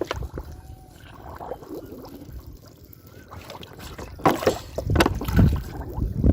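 Water splashing and sloshing, irregular and growing louder over the last couple of seconds, over a low rumble of wind on the microphone.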